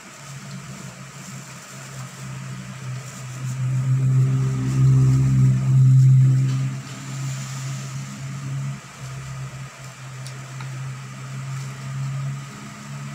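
A low, steady motor hum that swells to its loudest about four to seven seconds in, then falls back and carries on.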